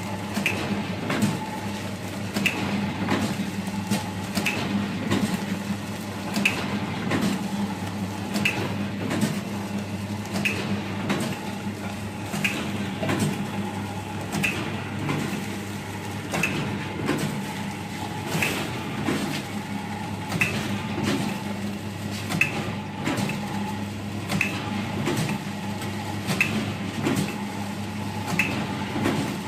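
Vertical form-fill-seal snack packing machine running: a steady motor hum with mechanical clatter, and a sharper clack repeating about every two seconds as the machine cycles through bags.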